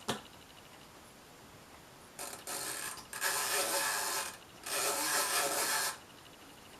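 Brother Opus 901 all-metal manual typewriter mechanism ratcheting in three runs of about a second each, after a single click at the start.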